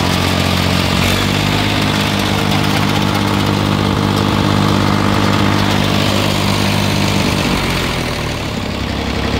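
Riding lawn mower engine running steadily close by; its note shifts and drops a little near the end.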